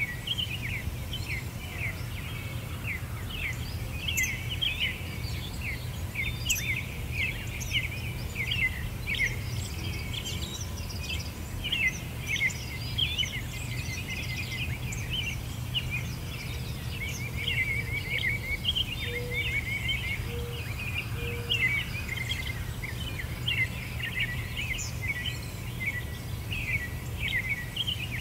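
Dense chorus of small songbirds chirping and twittering without pause, over a steady low hum.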